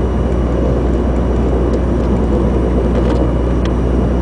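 Steady road and drivetrain noise inside a moving Chevrolet Cavalier, picked up from under the dashboard, with a few faint ticks.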